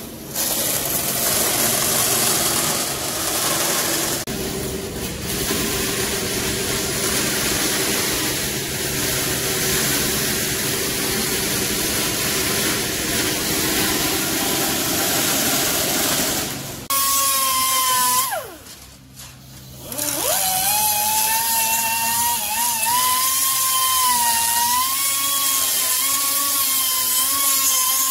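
A vertical band saw cuts sheet metal with a steady, noisy hiss over the hum of its motor. About seventeen seconds in, this gives way to the high whine of a small sanding drum, its pitch wavering as the metal edge is pressed against it. A second or so later it winds down, then spins back up about two seconds after that.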